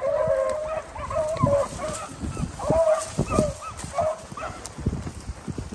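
A pack of beagles baying as they run a rabbit's track, several wavering voices overlapping, thinning out after about four seconds. Short low thumps sound underneath.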